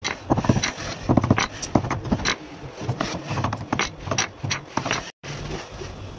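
Rapid, irregular knocks of a wooden-handled hammer striking a leather work glove on a hand form, about four or five blows a second. After a cut near the end, an industrial sewing machine runs steadily.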